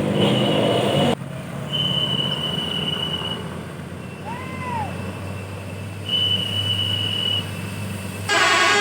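Tour bus telolet basuri horn: thin, high, whistle-like tones held for a second or so at a time, with a short rising-and-falling gliding note between them, over a low steady engine hum. A louder mixed sound cuts off suddenly about a second in, and a loud blaring horn blast starts near the end.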